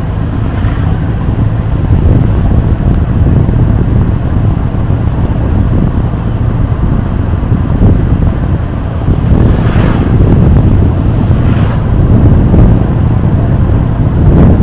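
Steady low rumble of wind buffeting the microphone and road noise from a moving vehicle, with a few brief whooshes about a second in and again near ten and twelve seconds.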